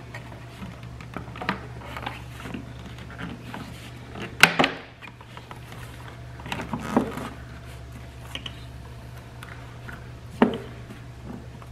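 Hard plastic air filter box lid being handled and pushed into place, giving a few sharp clacks and knocks, the loudest about four and a half seconds in, over a low steady hum.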